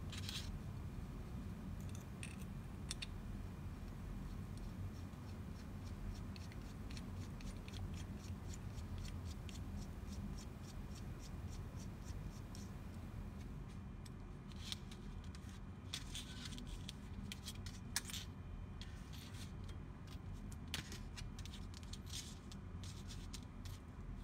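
Faint scattered clicks and small scrapes of hands handling a small plastic band-resizing tool and watch band, over a low steady hum; the clicks come thicker and a little louder in the second half.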